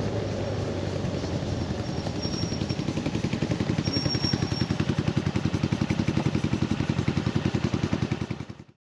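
Scooter engine running steadily, then settling about three seconds in into an even pulsing idle of roughly ten beats a second, as after coming to a stop. The sound cuts off abruptly near the end.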